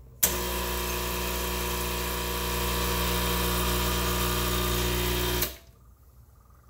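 Krups Gaggia espresso machine's electric pump switched on, buzzing loudly and steadily for about five seconds, then switched off and stopping abruptly.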